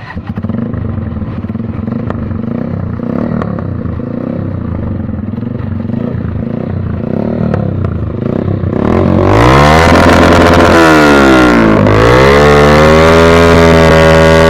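Yamaha YB125Z's 125 cc single-cylinder four-stroke engine running steadily at low revs through an aftermarket SC Project silencer, then revved hard about nine seconds in. The exhaust note climbs, dips briefly about three seconds later, and climbs again to hold loud at high revs.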